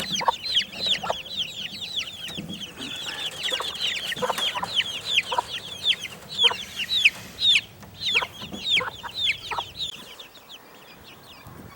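A brood of young chicks peeping constantly, many short high falling chirps overlapping, with occasional lower clucks from the mother hen. The peeping thins out and goes quieter near the end.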